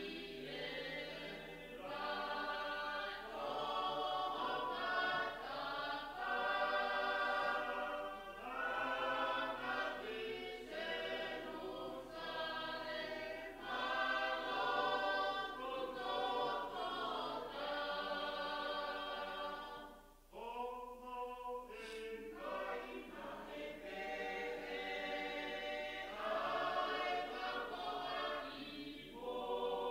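Choir singing in long, held phrases, with a short break about twenty seconds in.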